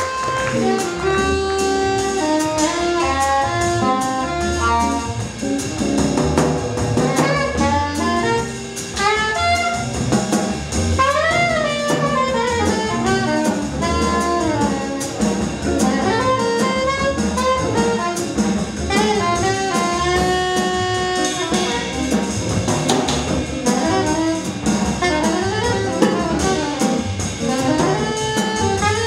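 Live small-group jazz: a soprano saxophone leads with quick melodic runs over upright bass and drum kit.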